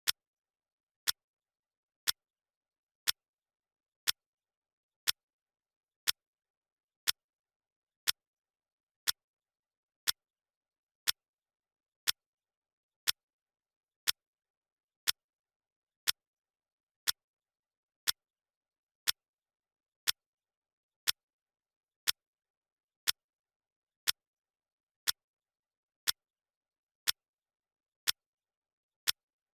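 Clock-ticking sound effect: one crisp tick every second, evenly spaced, with silence between the ticks.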